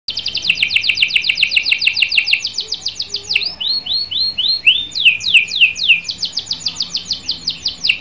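Domestic canary singing: a fast trill of repeated downward-sweeping notes, about eight a second, that slows midway into a few separate arched notes before the rapid trill returns.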